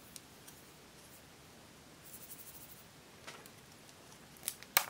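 Clear plastic candy-shaped capsule handled and opened: a quick run of faint ticks about two seconds in, a click a second later, then sharp plastic clicks near the end, the loudest as the capsule is opened.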